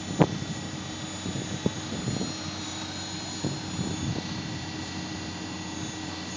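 Mechanical bull ride running with a steady machine drone, with a sharp knock about a quarter second in and a few softer knocks over the next few seconds.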